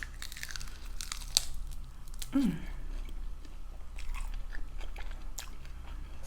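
Close-miked biting and chewing on fried chicken wings, with crisp crunches and many small wet clicks of the mouth. A short, low hum of pleasure comes about two and a half seconds in.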